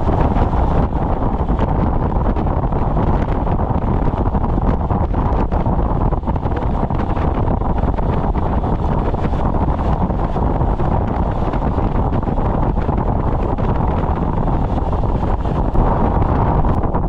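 Steady roar of wind on the microphone of a motorcycle ridden at road speed, with road and engine noise blended into it; no separate events stand out.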